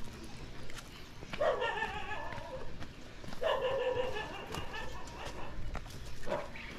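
Two drawn-out animal calls, each lasting about a second, with a shorter call near the end.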